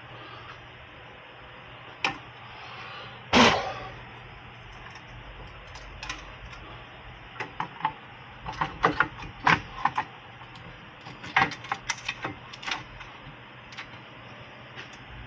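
Hand tools and metal parts knocking and clinking: one loud knock about three and a half seconds in, then a run of light clicks and clinks in the second half.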